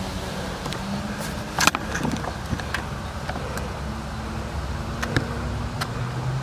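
Steady rumble of a Genesis 26-inch bicycle rolling along while being ridden, broken by a few sharp clicks and rattles, the loudest about two seconds in.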